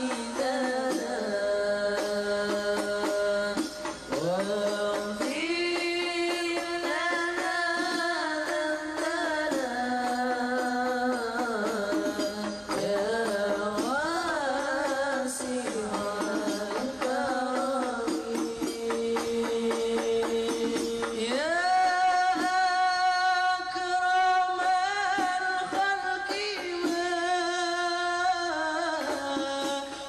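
Background music: a sung Islamic devotional song, with a voice holding long, wavering notes over instruments.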